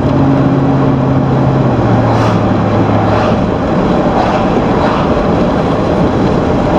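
Road noise inside a moving car's cabin: a steady rush of tyres and wind, with a low engine hum that drops slightly in pitch about two seconds in and fades out a second later.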